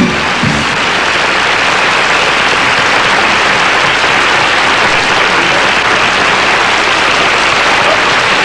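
Studio audience applauding steadily, with the last notes of the song dying away in the first half second.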